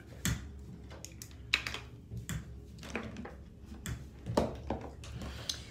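Scattered light clicks and taps of makeup containers being handled, as the jar of Laura Mercier translucent powder is picked up and got ready, over a faint low hum.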